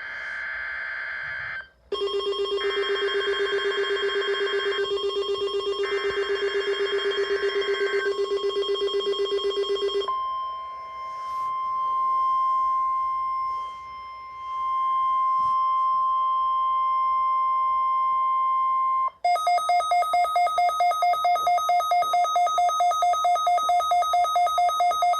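NOAA Weather Radio weekly test tones. A short burst of SAME digital header tones leads into about eight seconds of loud rapid beeping, with more data bursts over it. A steady 1050 Hz weather alert tone follows about ten seconds in and holds for about nine seconds. From about 19 seconds in comes a fast, higher-pitched pulsing alarm beep.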